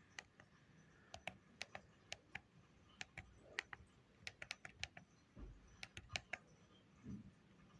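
Faint clicks of a mobile phone's keypad buttons, pressed about twenty times in quick, irregular succession.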